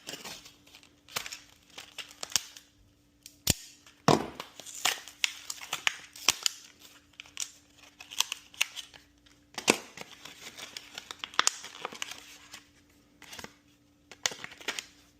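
Retail packaging being torn open by hand: irregular crinkling, rustling and tearing, broken by sharp clicks and snaps.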